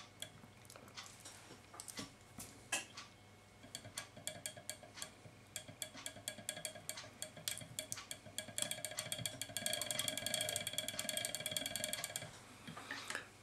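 Fly-tying vise and fly being handled and turned while epoxy is worked in, making scattered light clicks and taps. After about eight seconds comes a rapid rattling tick that lasts about four seconds and then stops.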